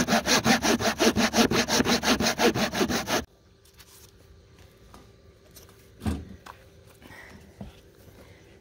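Hand saw cutting through the wooden entry step of an RV in quick, even back-and-forth strokes, about five a second, stopping abruptly a little over three seconds in. After that only faint handling noise, with a single knock about six seconds in.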